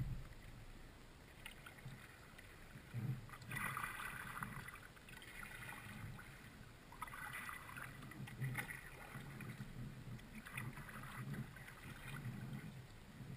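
Kayak paddle strokes: the blade splashing into and out of the water every couple of seconds, with light water noise along the hull.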